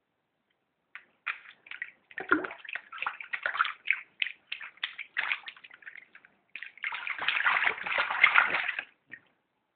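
Bathwater splashing and sloshing as a baby is bathed: scattered splashes, then a longer, denser run of splashing in the second half.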